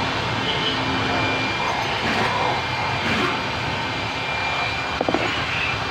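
Steady background hum of vehicles, with three quick small clicks about five seconds in.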